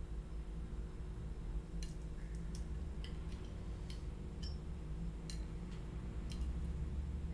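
A low steady hum, joined from about two seconds in by a dozen or so sharp, light ticks and clicks at irregular intervals.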